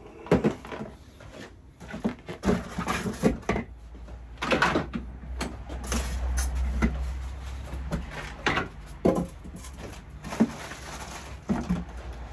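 Cardboard box and plastic-wrapped pressure-washer parts being handled as they are unpacked: irregular rustles, knocks and clunks, with a low rumble for about two seconds in the middle.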